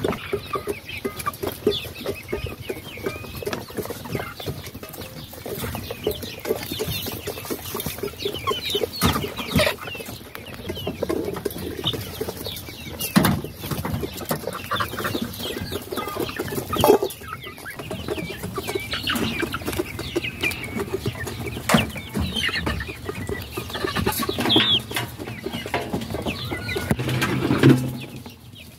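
A flock of young hens (pullets) clucking continuously, with many short calls overlapping and a few louder calls standing out.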